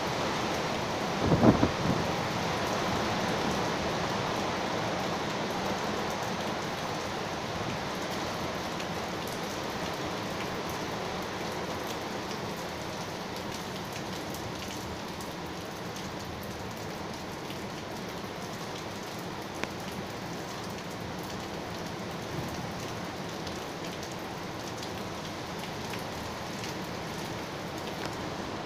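Heavy cyclone rain pouring steadily, with wind. About a second and a half in there is a short, much louder burst.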